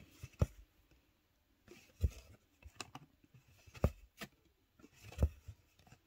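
Cross-stitch needle and floss being pushed and pulled through stiff, starched stamped cross-stitch fabric: several sharp pops at uneven intervals, about one a second, with faint rustling between.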